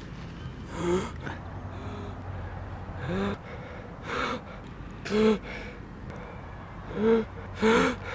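A person sneezing over and over: about six short sneezes a second or two apart, the last two loudest and close together.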